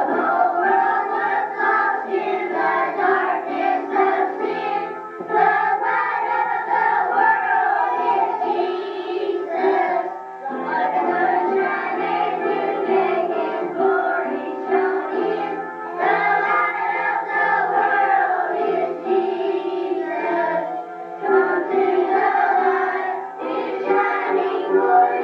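A group of voices singing a slow song with accompaniment, in long held phrases with short breaks about every five seconds.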